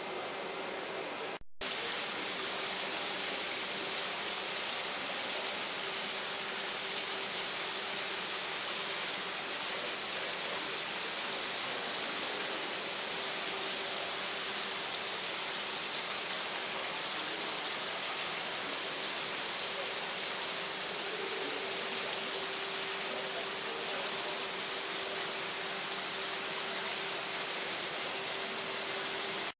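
Small artificial waterfall running over rocks into a pond: a steady rush of falling water, with a faint steady hum underneath. After a brief break about a second and a half in, the water sound comes in louder.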